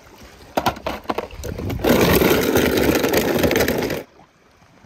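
A run of sharp cracks and knocks, then a loud crashing, crunching noise for about two seconds that cuts off suddenly.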